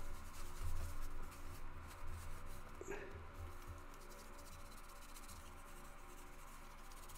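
Folded paper towel rubbed back and forth over a metallic-painted plastic scale-model part, polishing the metal finish with increasing pressure. A dry, irregular rubbing, more active in the first few seconds and softer near the end, over a faint steady low hum.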